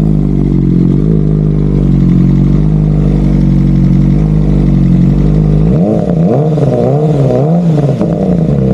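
BMW M1000RR's inline-four engine breathing through Akrapovič titanium headers and an Arrow Pista GP black titanium slip-on muffler, idling steadily, then revved in three quick throttle blips just under six seconds in before dropping back to idle. Pretty loud, measured at 111 decibels.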